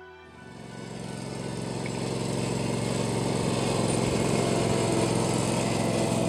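Ride-on lawn tractor engine running as it tows a drag mat over infield dirt. It grows louder over the first two to three seconds as the tractor comes close, then holds steady.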